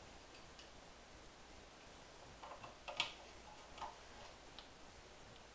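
A few light metallic clicks and taps as the magneto plate of a 1959 Evinrude Fastwin 18 hp outboard is worked loose and lifted off the crankcase, the sharpest click about three seconds in.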